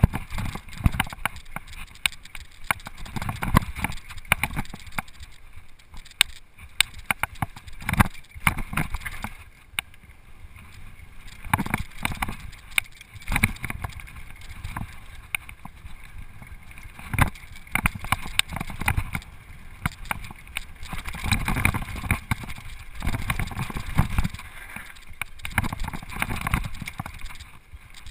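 Mountain bike descending a dirt trail at speed: wind rumble on the microphone and tyre noise on dirt and gravel, with frequent sharp knocks and rattles as the bike hits bumps.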